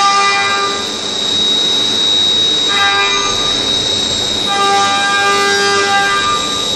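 Leadwell V-50L CNC vertical machining centre face-milling a metal block. A steady high-pitched spindle whine runs throughout, and a pitched, horn-like cutting tone sounds three times: at the start, briefly about three seconds in, and again from about four and a half to six seconds, as the cutter moves through the cut.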